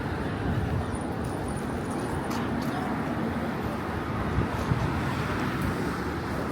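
Busy city street ambience: a steady wash of traffic noise, with a few faint light clicks.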